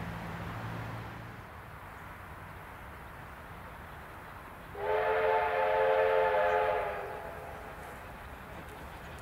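A steam locomotive's whistle gives one steady blast of about two seconds, several tones sounding together, starting about halfway through. A low steady hum fades out about a second in.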